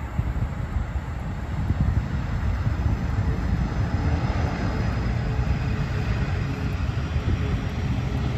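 Jet engines of a Boeing 747 freighter taxiing across an airport taxiway bridge: a steady low rumble with a hissing whine that grows louder towards the middle.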